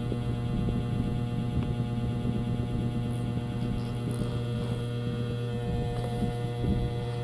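A steady low hum with a faint crackle underneath, even in level throughout.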